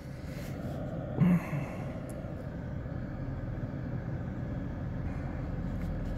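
Steady low rumble of passing road traffic that grows slowly louder as a vehicle approaches. A brief low hum about a second in is the loudest sound.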